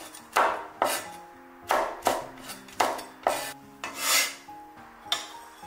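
Cleaver slicing bird's eye chilies into rings on a wooden cutting board. About eight separate knocks of the blade on the board come at an uneven pace, with one slower, swelling stroke about four seconds in.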